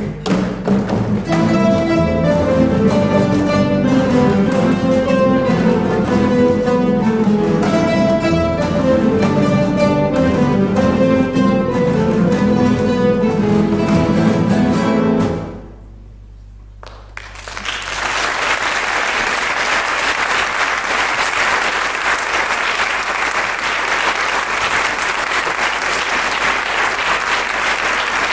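A guitar orchestra of many classical guitars plays the closing bars of a piece and stops about halfway through. After a brief pause of a second or two, the audience applauds steadily.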